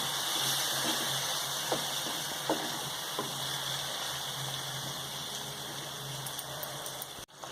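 Chicken gravy simmering in a pan with a cup of water just added: a steady bubbling hiss, with a few light clicks in the first half.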